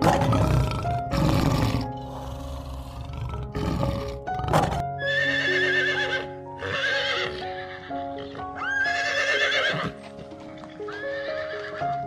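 A lion roaring in several rough bursts, then a horse whinnying four times, each neigh with a shaky, wavering pitch, over background music.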